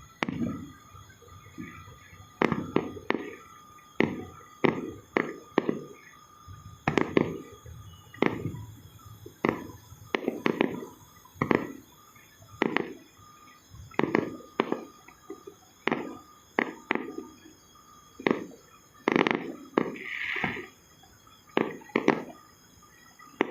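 A series of sharp knocks or pops, unevenly spaced at about one a second, each with a short low ring after it.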